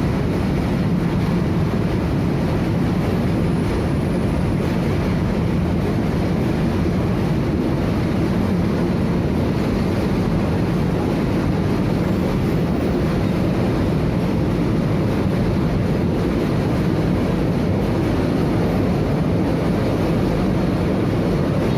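Freight train wagons rolling past on the rails: a steady, unbroken rumble.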